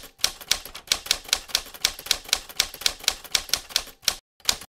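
Typewriter keys striking in a quick, even run, about five strokes a second, with one last stroke after a short pause near the end.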